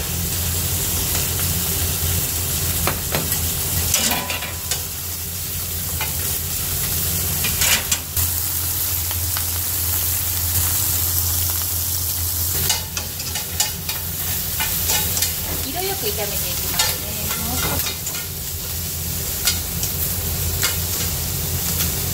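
Whelk meat and baby corn sizzling steadily in hot oil in a skillet, over a steady low hum. Scattered sharp clicks of utensils against the pan come through at several points as the pieces are stirred.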